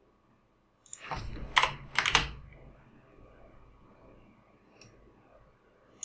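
A short run of keystrokes on a computer keyboard, about a second in.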